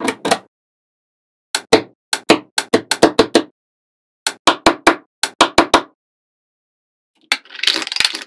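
Small magnetic balls clicking sharply as they snap together one by one, in quick runs of clicks with short pauses between. Near the end comes a brief rattling clatter of many balls at once.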